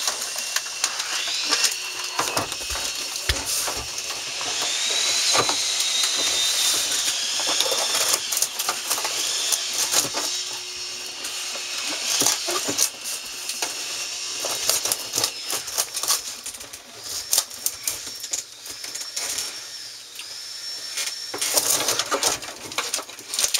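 Handling noise from an air conditioner unit being worked into its opening: scattered clicks, knocks and rattles, with several short high-pitched whines or squeaks in between.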